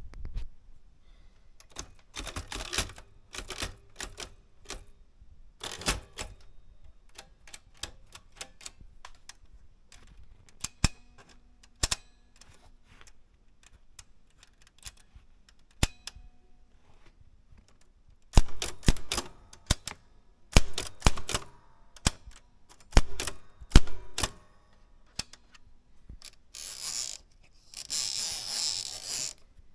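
Erika 105 portable typewriter being worked: sharp mechanical clacks of keys and levers, scattered at first, then dense runs of strokes past the middle. Near the end comes a longer rasping, sliding noise from the mechanism.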